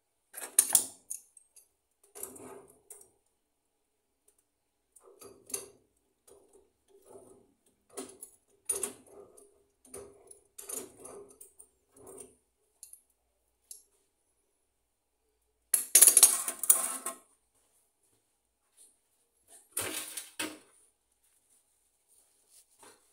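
Intermittent handling noise: scattered small clicks, clinks and knocks, with louder bursts of rubbing and clatter about a second in, around sixteen seconds in and again around twenty seconds in.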